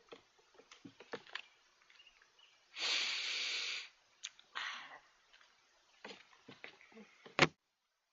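A person sniffing hard through the nose: one long, loud sniff about three seconds in and a shorter one a second and a half later, among small clicks and rustles. A sharp click near the end, then the sound cuts out.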